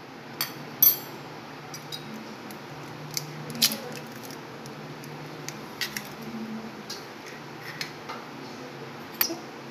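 Sharp taps and clicks as an egg is cracked and its shell broken open by hand over a bowl, with a few knocks against the bowl, over a faint low steady hum.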